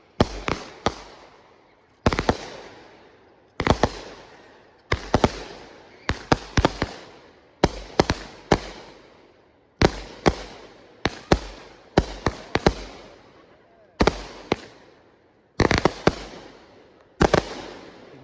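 Consumer fireworks going off: clusters of two to four sharp bangs about every second or so, each followed by a fading echo.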